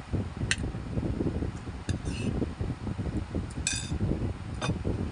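A metal spoon clinks and scrapes against a plate about five times; the loudest, ringing clink comes near the end. A steady low rumble runs underneath.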